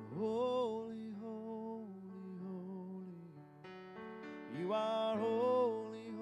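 Worship music: a man sings two long phrases that swoop up into held notes with vibrato, one at the start and one near the end, over sustained chords on a Kurzweil keyboard.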